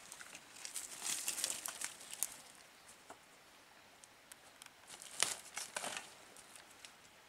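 Footsteps crunching and rustling through dry leaf litter and twigs, with irregular crackles: a busy stretch in the first two seconds, a lull, then another cluster with a sharp snap about five seconds in.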